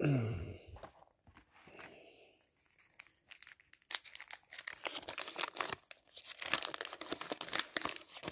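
A 1989 Fleer wax pack's waxed-paper wrapper being torn open and crinkled, a dense, irregular crackling from about three seconds in. It is preceded by a brief falling hum from a voice at the very start.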